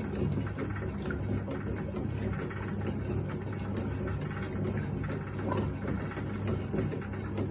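Hotpoint Countess wringer washing machine running: a steady electric motor hum with a continuous light rattle from its mechanism.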